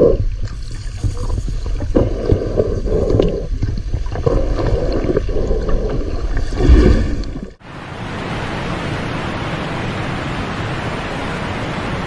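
Gurgling, sloshing water with scattered knocks, heard underwater. About seven and a half seconds in it cuts sharply to a steady rushing hiss of sea surf and wind.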